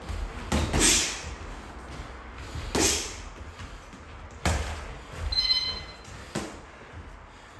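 Boxing gloves landing during sparring: about half a dozen sharp, irregularly spaced hits. A brief high squeak comes about five seconds in.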